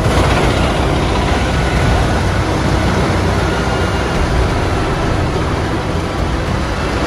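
MUS-MAX 11 Z wood chipper chipping logs fed in by its crane: a loud, steady machine din with a deep rumble underneath, as chips blow out of the discharge spout.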